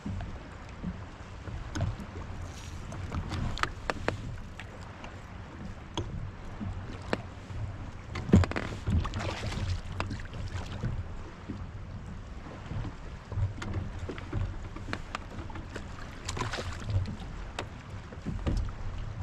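Wind rumbling on the microphone and water moving around a plastic fishing kayak, with scattered knocks and clicks of gear against the hull. The sharpest knock comes about eight seconds in.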